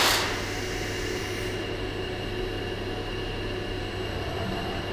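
A robotic MIG welding arc's hiss cuts off just after the start, leaving a steady machine hum with a few faint steady tones from the welding cell's equipment.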